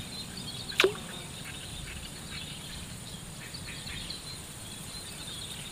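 Swamp ambience: a steady high insect drone with many small chirps scattered through it, and one quick, sharp falling call a little under a second in.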